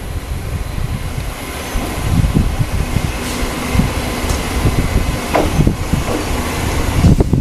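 Choshi Electric Railway train running slowly on the track: a steady low rumble with a faint steady hum through the middle.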